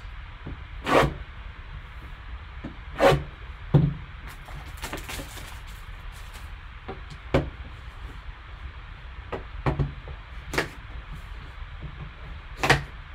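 A cardboard card box and a folding knife handled on a tabletop: irregular knocks and taps as the box is turned, lifted and set down, with a short rustle partway through, and the knife brought to the box's tape seal near the end.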